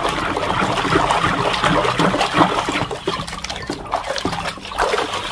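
Water running and splashing as muddy plastic toys are washed, with scattered knocks of plastic being handled.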